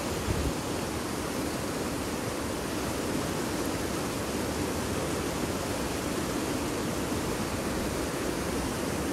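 Fast mountain river rushing over boulders in white-water rapids, a steady, even rush of water. A brief low thump sounds just after the start.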